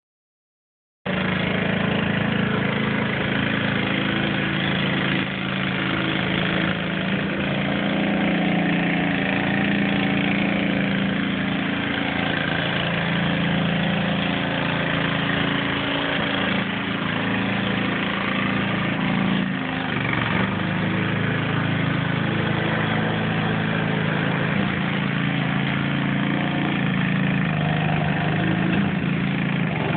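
Lawn mower engine running steadily at a constant speed, starting about a second in.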